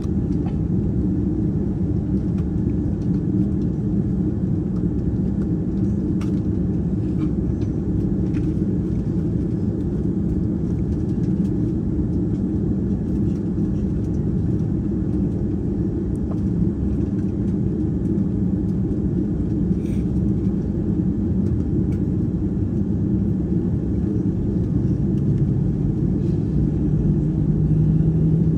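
Steady low rumble of an Airbus A330 airliner heard from inside the cabin, with a low hum coming in near the end.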